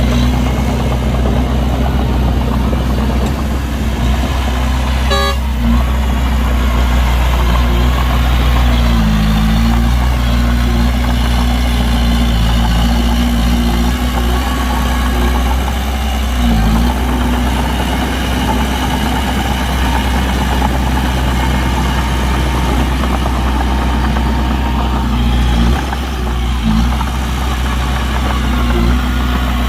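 Heavy diesel engine of construction machinery running steadily and loud, with its pitch dipping briefly twice, and one sharp tick about five seconds in.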